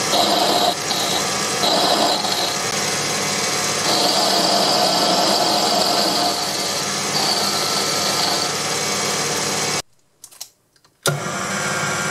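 Proxxon PD 250/e mini lathe running while a tool cuts a metal shaft. A high whine from the cut comes and goes in stretches. The sound drops out for about a second near the end, then the lathe is heard running again.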